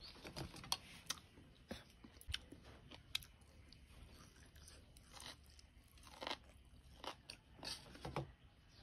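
A person chewing a mouthful of food, faint, with small irregular clicks of the jaw and mouth scattered through and a few stronger ones in the second half.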